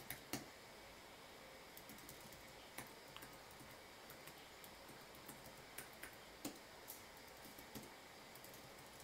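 Faint typing on a computer keyboard: irregular single keystrokes with short pauses between them.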